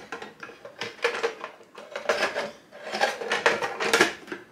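Hard plastic parts of a water filter pitcher knocking and rattling as the lid is seated and adjusted on the jug, in several clusters of clatter, the busiest near the end.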